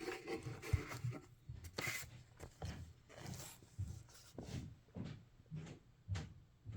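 Light, irregular knocks and rubbing from a plastic wall clock being handled and turned over, about two small sounds a second.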